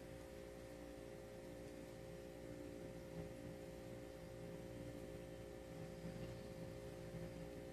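Faint steady electrical hum over quiet room tone, with no other clear sound.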